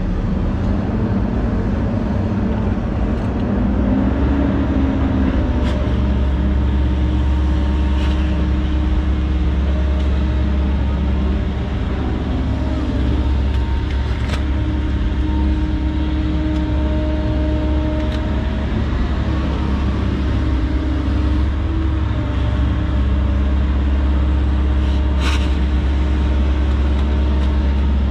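Volvo 140 excavator's diesel engine running steadily under load, with a hydraulic whine that shifts in pitch as the boom and bucket dig mud. A few sharp knocks of the bucket or machine come through.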